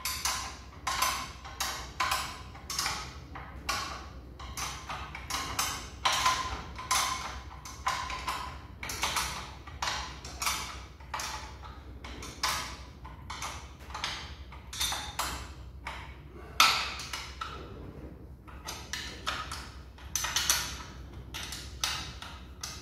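Steel spanner clinking against the gearbox-to-engine bolts as they are inched in by hand, a ringing metallic clink about twice a second, keeping the pull-up even so the gearbox does not go in crooked.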